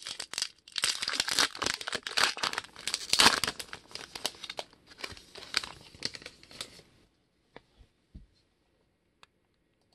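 Trading card pack wrapper being torn open and crinkled by hand, a dense crackling for about seven seconds. After that it goes quiet apart from a few faint ticks as the cards are handled.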